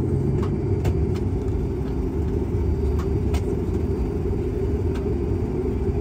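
Dash 8 Q400's Pratt & Whitney PW150A turboprop engine running during start-up with its six-blade propeller turning, heard from inside the cabin: a steady low rumble with a faint steady hum and a few light ticks.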